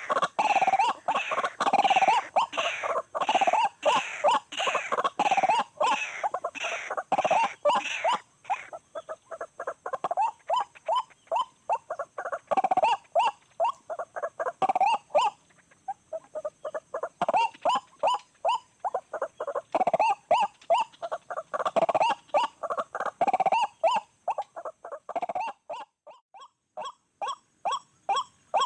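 White-breasted waterhen (ruak-ruak) calling: a long run of short, harsh repeated notes at about two or three a second. It is loud for the first eight seconds, then softer and more broken.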